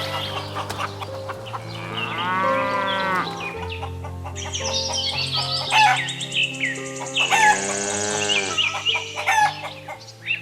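A rooster crowing twice, a little over two seconds in and again about seven seconds in, with many short high chirps between, over background music with steady held notes.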